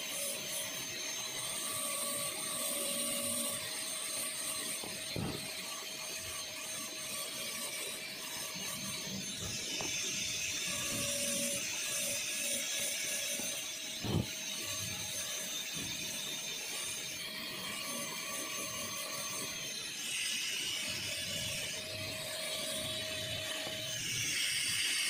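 A high-speed dental handpiece runs a diamond bur (the 'stone') that grinds depth grooves into a typodont molar during occlusal reduction for a full metal crown preparation. It makes a steady high whine with a grinding hiss whose high tones shift several times as the bur works. There are two short knocks, one about five seconds in and one about fourteen seconds in.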